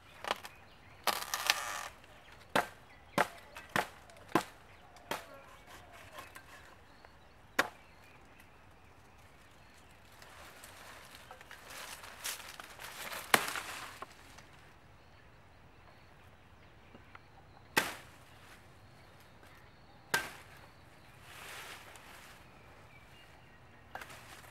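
Curved billhook chopping at tree branches: a quick run of sharp chops, about one every half second over the first five seconds, then a few more spaced far apart. In between come longer stretches of rustling from leafy branches and twigs.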